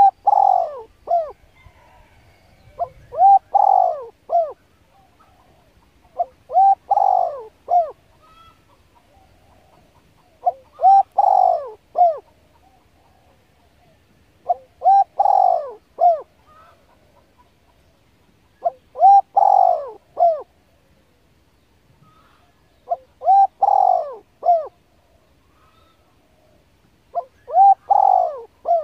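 A bird calling: the same short phrase of a few low notes, repeated about every four seconds.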